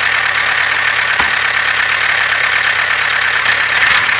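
Miniature DIY model tractor running steadily while towing a brick-loaded trailer, a constant whirring hum with a short click about a second in.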